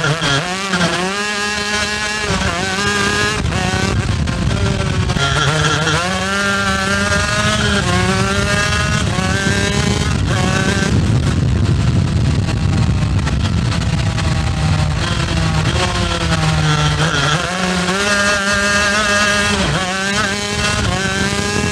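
Shifter kart's two-stroke engine run hard, its pitch climbing and dropping sharply again and again as the kart accelerates through the gears and backs off.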